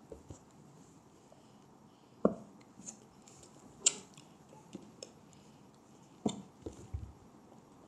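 A handful of scattered light taps and knocks as a clear cup is handled and set down on a cloth-covered table. The three clearest come about two, four and six seconds in, with quiet between.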